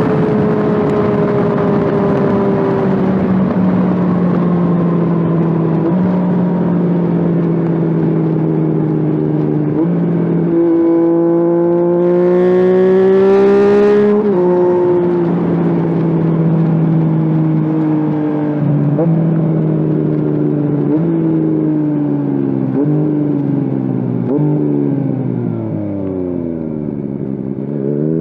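Yamaha FZ-09 (MT-09) 847 cc inline-three engine heard from the bike while riding. The revs ease down, then build in a steady pull about halfway through. A run of short upward jumps follows, typical of downshifts, each sinking away again. Near the end the engine drops to low revs, then climbs steeply as it pulls away, with wind rush underneath throughout.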